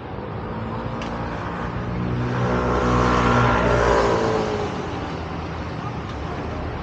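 A motor vehicle's engine passing by on the street, growing louder to a peak about three seconds in and then fading away over steady traffic noise.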